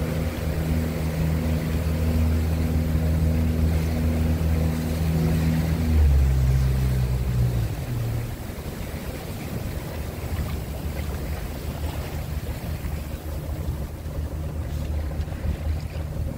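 Motorboat engine running steadily. About six seconds in its note changes briefly and grows louder, then about two seconds later the engine sound drops away, leaving the wash of water and wind.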